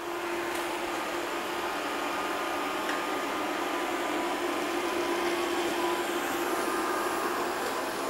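Deebot X1 Omni robot vacuum running as it cleans a patch of floor: a steady whirring noise with a constant hum.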